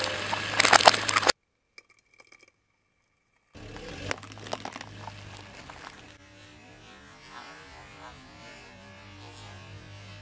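Car tyre rolling over plastic yogurt cups on gravelly asphalt. There is a crackle of crushing plastic and grit that cuts off abruptly about a second in, then about two seconds of near silence. After that comes quieter steady noise with a low hum as the car waits and creeps toward the next cups.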